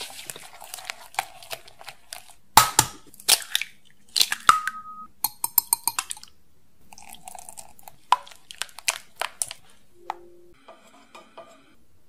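Kitchen prep sounds: a hand whisk working a creamy mixture in a glass bowl, then eggs knocked and cracked into a ceramic bowl, heard as a run of sharp taps and clicks.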